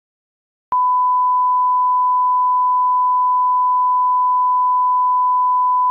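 TV colour-bars test tone: one pure beep at a single steady pitch, the standard 1 kHz reference tone. It starts abruptly less than a second in and holds unbroken.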